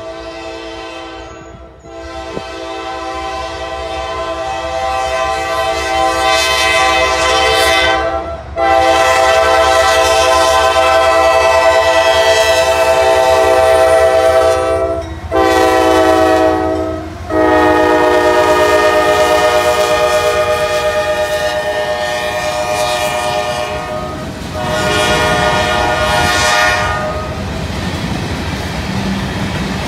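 CSX freight locomotive's air horn blowing five blasts: two long, one short, one long, then a final short one, the grade-crossing warning pattern. After the horn stops, near the end, the freight cars rumble and clatter along the rails.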